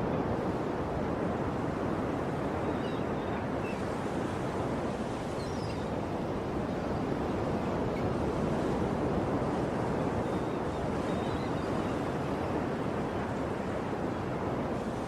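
Ocean surf: a steady wash of breaking waves with gentle swells, and a few faint high bird chirps.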